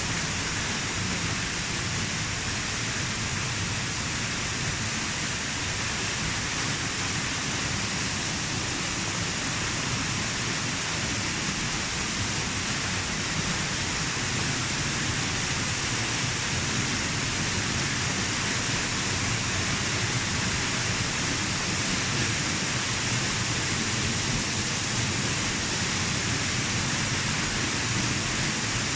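Waterfall pouring, heard up close: a steady, even rush of falling water.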